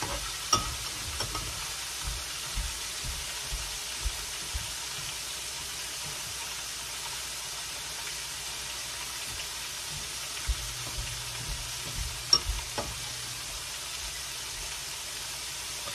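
Garlic-buttered slice of French bread frying in a skillet at medium heat, a steady sizzle, with a few light clicks near the start and again near the end.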